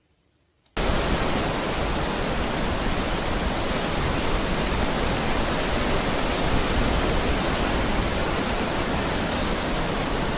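A steady, loud rushing noise, even from low to high pitches, that starts abruptly under a second in and holds unchanged.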